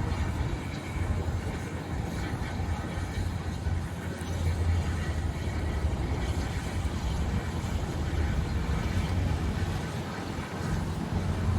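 A boat's engine running with a steady low hum, under a wash of wind and water noise.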